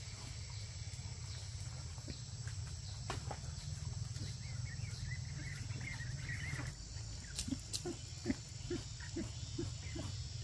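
Animal calls over a steady low hum: a wavering high chirp around the middle, then a run of short, evenly spaced calls, about two a second, near the end.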